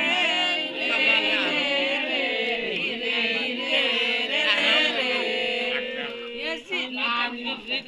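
Several men's voices chanting a Sohrai song together, overlapping with long held notes; in the last two seconds the singing breaks up into shorter, speech-like calls.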